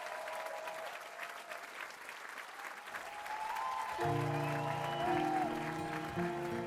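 Theatre audience applauding and cheering. About four seconds in, an instrumental song intro begins with held chords under the applause.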